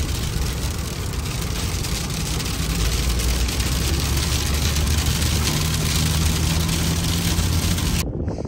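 Steady engine hum and road noise inside a moving car on a wet, snowy road. It cuts off suddenly near the end.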